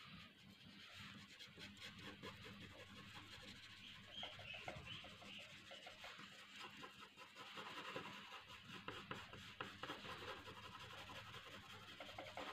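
Graphite pencil shading on paper: faint, rapid scratching strokes rubbing back and forth.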